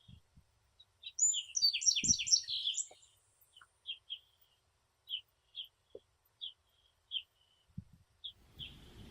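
Small songbirds chirping: short, high chirps repeating about twice a second, with a louder flurry of quick, higher notes in the first few seconds.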